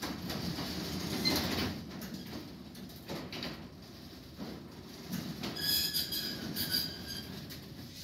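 Sectional garage door pushed up by hand with its opener disengaged, the rollers rumbling and rattling along the metal tracks. High metallic squeals twice, about two thirds of the way in.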